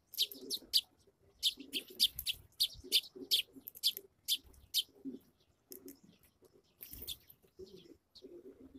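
Sparrows chirping in a quick run of short, high chirps, about three a second, thinning out after about five seconds.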